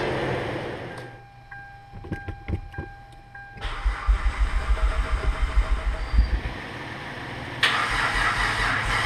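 Hyundai Tiburon engine cranking on the starter in a fast, even rhythm for about two and a half seconds, then a short lull, then catching and running steadily about three-quarters of the way in. Before the crank, a car warning chime beeps over a steady tone with a few clicks. Music fades out at the very start.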